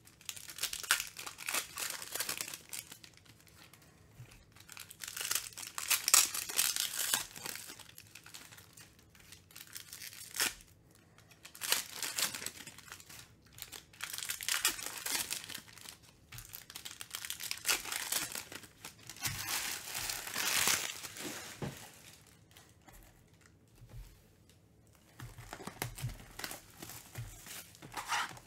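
Foil trading-card pack wrappers being torn open and crinkled by hand, in a series of rustling, crackling bursts a second or two long with short pauses between.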